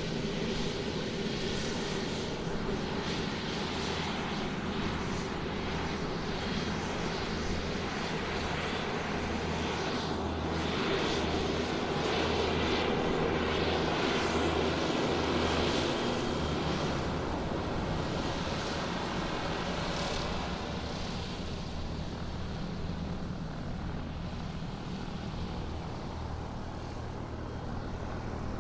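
Airplane taxiing on the ground: its engine runs steadily with a pulsing low hum, swells louder about halfway through, then eases off.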